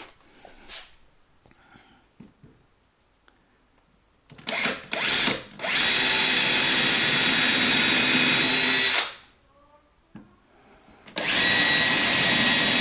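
Cordless drill boring dowel holes into the edge of a wooden panel: two short blips of the motor, then a steady run of about three and a half seconds, a pause, and a second run of about two seconds.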